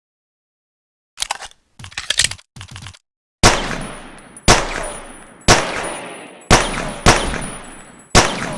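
Colt pocket pistol: a few quick metallic clicks of handling, then six shots fired at about one a second, the fifth coming sooner. Each shot leaves a long echoing tail that fades before the next.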